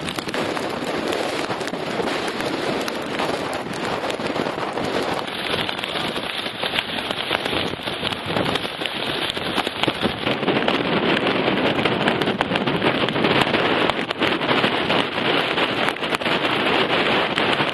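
Hurricane wind and driving rain battering the microphone: a dense, steady rush full of fine crackling, growing louder in the second half.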